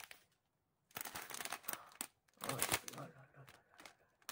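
Small clear plastic zip-lock bags crinkling and rustling as they are handled, in a quick run of crackles about a second in.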